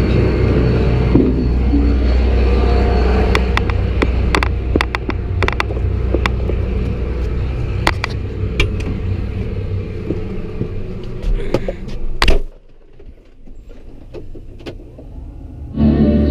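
Farm machine engine running steadily, with many sharp clicks and rattles over it. About twelve seconds in there is a sharp knock and the engine sound drops away, leaving a much quieter low rumble, and a loud engine sound returns near the end.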